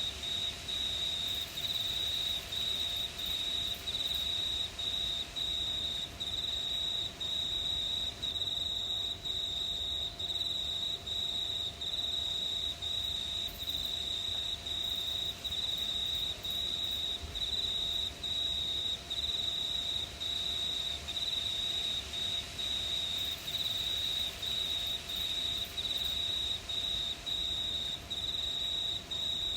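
A chorus of crickets chirping at night: a high, shrill trill broken into even pulses about twice a second, steady throughout.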